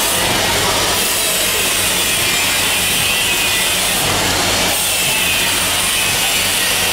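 Horizontal form-fill-seal packing machine running: a steady mechanical whir and rattle over a low, even motor hum.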